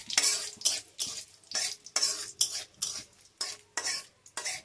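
Metal spatula scraping and clinking around a metal kadai in quick repeated strokes, about three a second, stirring cumin seeds and dried red chillies frying in hot oil during tempering.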